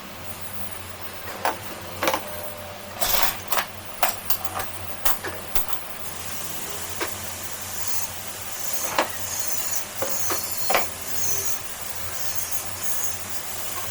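A run of irregular sharp clicks and knocks, about a dozen over several seconds, with a steady low hum underneath.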